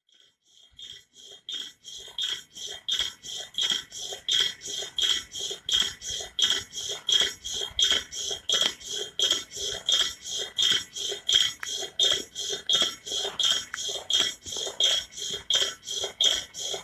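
Metal coil spring of a bouncing spring swing squeaking rhythmically, about three high squeaks a second as it bounces up and down. It fades in at the start and then keeps a steady beat.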